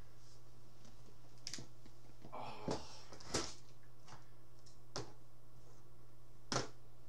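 A few scattered light clicks and taps, about six spread irregularly over several seconds, over a steady low hum.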